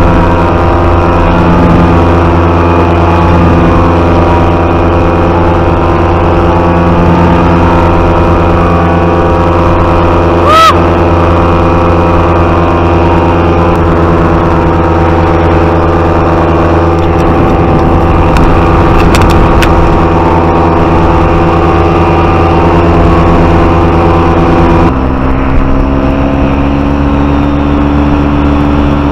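Paramotor engine and propeller running steadily at cruising power in flight, heard close up from the pilot's harness. About ten seconds in there is a short, loud rising chirp, and near the end the sound changes abruptly to a duller, slightly different pitch.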